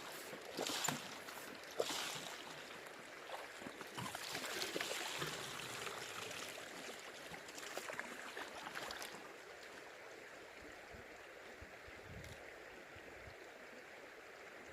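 Water swishing and gravel clicking and scraping in a gold pan as a placer-gold sample is washed down. After about nine seconds this stops, leaving the steady run of the river.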